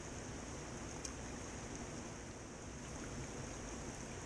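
Steady rush of river rapids and small waterfalls, with one faint tick about a second in.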